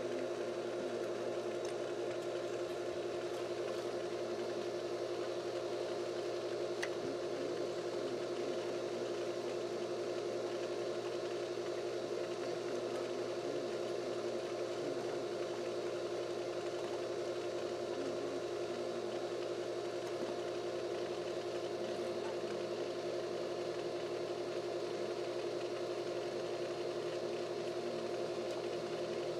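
Steady mechanical hum of a motor running at a constant pitch, unchanging throughout.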